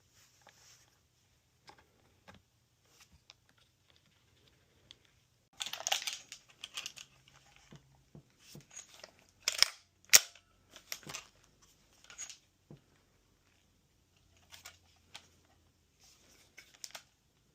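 Irregular clicks, rattles and snaps of airsoft rifle parts being handled and fitted together, with a burst of rattling about six seconds in and two sharp clicks near the middle, the second the loudest.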